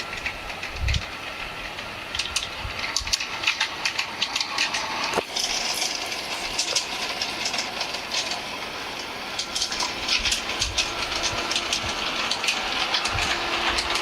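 G-scale model train running on garden track: a faint steady motor hum with many small sharp clicks from the wheels passing over the rails.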